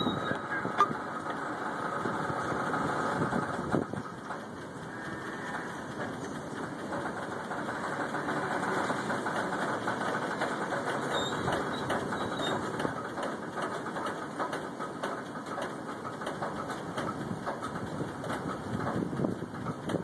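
Diesel locomotive engine running steadily, with a couple of brief clicks in the first few seconds.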